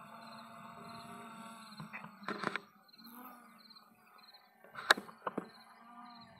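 Insects chirping in short repeated calls over a faint steady low hum, broken by a few sharp clicks: a pair about two and a half seconds in and a louder cluster near five seconds in.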